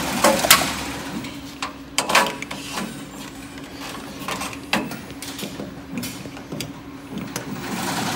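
A screwdriver and cable plugs clicking and knocking against the metal electronics box of an embroidery machine, a few sharp clicks a second or two apart, over a steady mechanical hum.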